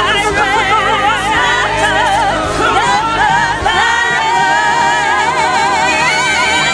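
The final held notes of a musical-theatre song: several layered voices sustain long notes in harmony with heavy vibrato over the backing track. About three and a half seconds in, the low bass and drums drop away, leaving the held chord.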